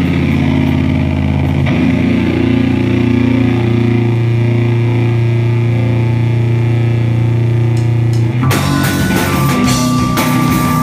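Live rock band playing loud. A held, distorted low guitar and bass chord rings for about eight seconds, then drums and crashing cymbals come in with the full band, with a high steady tone sounding over it.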